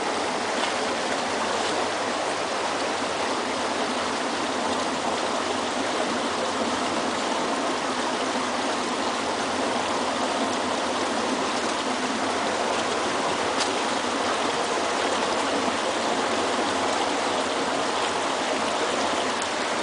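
Steady rush of running water at a spring-fed aqueduct intake, an even, unbroken sound with no change in level.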